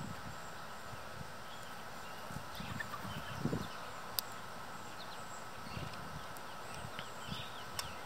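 Outdoor ambience: small birds chirping faintly and briefly, over a low, uneven rumble and a faint steady hum, with one sharp tick about four seconds in.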